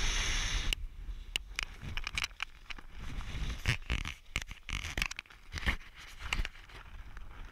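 Rushing freefall wind noise cuts off abruptly under a second in. It is followed by irregular crackling, rustling and sharp clicks of nylon wingsuit and parachute fabric as the parachute deploys.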